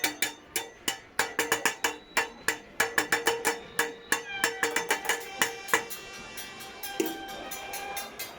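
Metal farm tools, hoes and machetes, beaten to make noise: fast, irregular clanging with each strike ringing. The strikes thin out after about six seconds, leaving ringing metallic tones.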